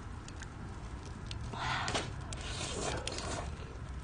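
Eating sounds at a campfire: soft scraping and slurping-like rustles from a spoon and bowl, twice around the middle, with a few light clicks over a steady low rumble.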